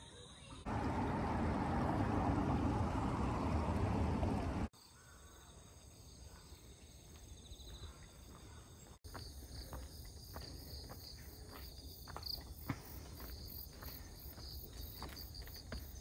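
Insects chirping and trilling steadily in high, thin tones, with a faster pulsing chirp above them. For about four seconds near the start a loud rushing noise covers them. In the second half, footsteps land a couple of times a second, on a paved lane and stone steps.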